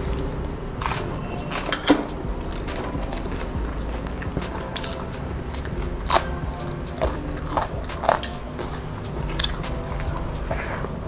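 Close-up eating sounds: chewing of hand-mixed rice and spinach, with several sharp crunching bites, some into raw long green chillies.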